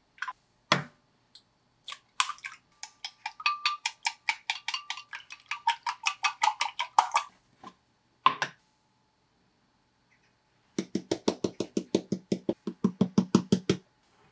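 Egg cracked on a glass mug with a couple of sharp taps, then beaten with wooden chopsticks in the glass: a fast, even clicking of about seven strokes a second for some five seconds. Near the end, another run of quick, duller knocks lasting about three seconds.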